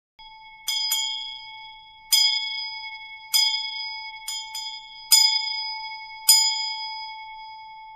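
A bell struck about eight times at an uneven pace. Each stroke has a sharp onset and rings on with the same clear pitch, and the tone keeps sounding between strokes.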